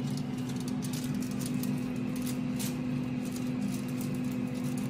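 Steady hum of an air fryer's fan running while it heats, with a few soft clicks and scrapes of a spoon packing spice paste into the fish.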